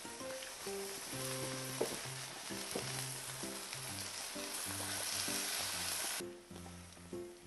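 Yakiniku meat sizzling on a hot grill, an even frying hiss that cuts off suddenly about six seconds in, with background music throughout.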